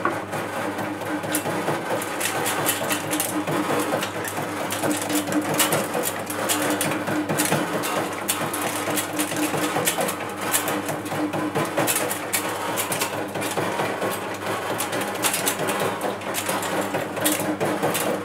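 Custard apple de-seeding machine running steadily: a motor hum with a continuous dense clatter of small clicks.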